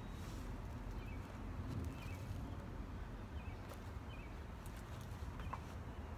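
Quiet backyard ambience: a steady low rumble with faint bird chirps now and then.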